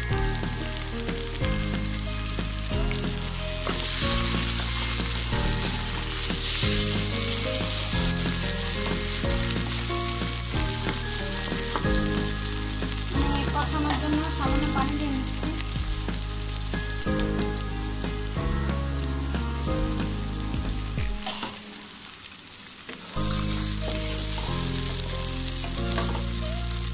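Sliced onions and garlic paste sizzling in hot oil in a wok, stirred with a spatula. Background music with a low bass line plays underneath, its low notes dropping out for about two seconds near the end.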